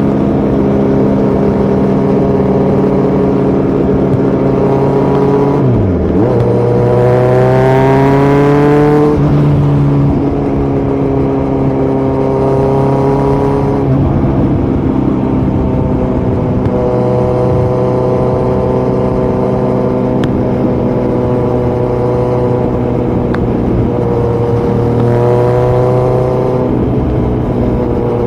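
Kawasaki Z900's inline-four engine running through a Yoshimura muffler and Delkevic headers with no dB killer, while riding. The engine holds steady revs, then about six seconds in the revs dip and climb sharply before falling back near ten seconds at a gear change, and they rise again briefly near the end.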